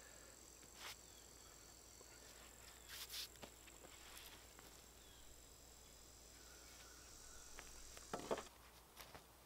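Near silence with a faint, steady, high-pitched insect drone that stops about eight and a half seconds in. A few faint knocks, most of them near three seconds and just after eight seconds.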